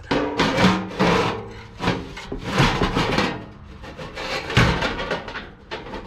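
Metal squirrel-cage blower wheel being worked back into its sheet-metal blower housing: a series of scrapes and knocks as the wheel rubs and bumps against the housing.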